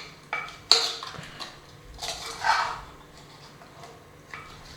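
Spoon stirring and scraping chicken pieces, onion and tomato in oil inside a clay cooking pot (handi), with a sharp clink of the spoon against the pot about three-quarters of a second in.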